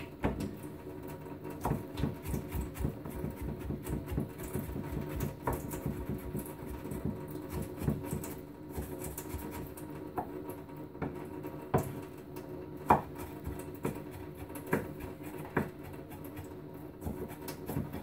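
Kitchen knife chopping on a cutting board: a long run of quick, uneven knocks as ingredients are cut fine, toward a mince.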